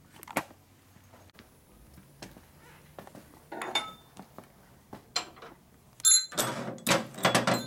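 Metal parts clinking and clattering as they are handled: a few separate light clinks, one ringing briefly, then a louder run of rattling clatter near the end.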